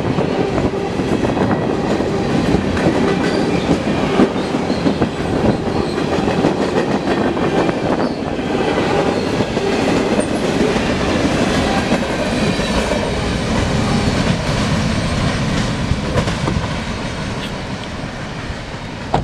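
Freight train cars rolling past close by: a steady rumble of steel wheels on rail with rapid clickety-clack over the rail joints, easing off over the last few seconds as the end of the train draws away.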